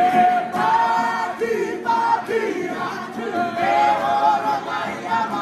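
A group of men singing loudly together in long held notes, some sliding downward, accompanied by strummed ukuleles and acoustic guitar: a Cook Islands string-band song.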